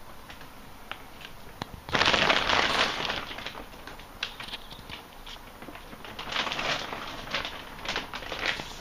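Crackling, rustling noise with scattered clicks, loudest for about a second starting two seconds in and picking up again near the end.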